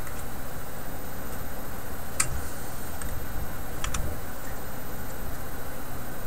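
A few small, sharp clicks as fingers bend and fit a capacitor's wire leads at a tag strip under a tube radio's metal chassis, over a steady low hum and hiss.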